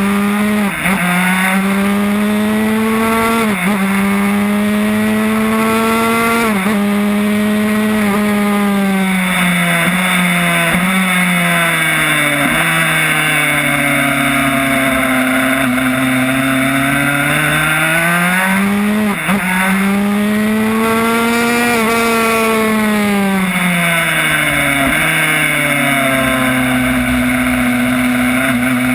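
Yamaha YZ85 two-stroke single-cylinder engine in a 1994 Honda RS125 race bike, run hard around a track. The revs climb through quick upshifts near the start, fall away and rise again through corners, with another shift about two-thirds through, and drop off near the end. Steady wind noise runs underneath.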